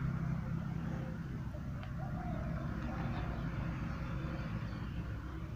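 Steady low background rumble of traffic, with a faint click about two seconds in.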